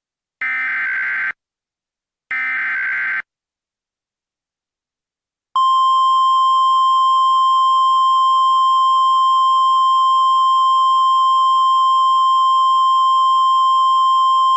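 Emergency Alert System tones on NOAA Weather Radio: two bursts of SAME header data, each a harsh digital warble about a second long, then after a two-second gap the steady 1050 Hz warning alarm tone starts. The sequence signals a new warning and sets off weather radios.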